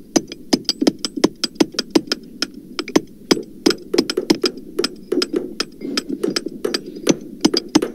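Hammers striking rapidly and unevenly, about five blows a second, with the recording pitched down to sound deeper.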